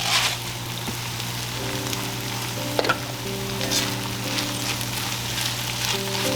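Food sizzling as it fries in a pan, with a few short scrapes or clicks from a utensil. Soft background music with held notes plays underneath.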